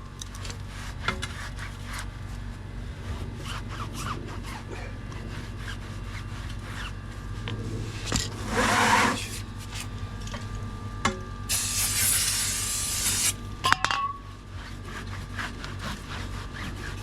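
Wheel rim's tyre bead seat being scrubbed by hand: a steady, scratchy rubbing. A short hiss of aerosol brake cleaner comes about twelve seconds in.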